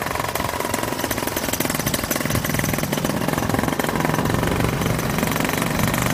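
Paramotor engine running steadily, a fast even stream of firing pulses with a constant hum.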